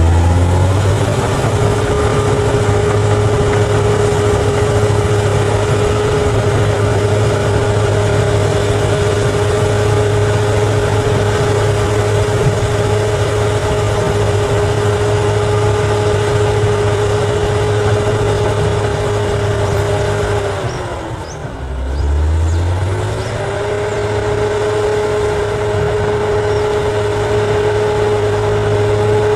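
Bulldozer's diesel engine running hard at a steady high pitch over a heavy low rumble. It climbs up to speed right at the start, sags about 21 seconds in, and climbs back up a couple of seconds later.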